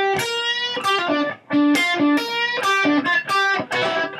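Electric guitar playing a single-note blues line on G minor pentatonic notes in a higher neck position, one plucked note after another, with a short break about a second and a half in.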